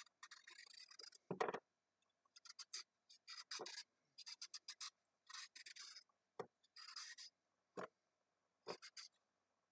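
Faint scraping of a small kitchen knife shaving the peel off a raw carrot, in short irregular strokes, with a few soft knocks between them.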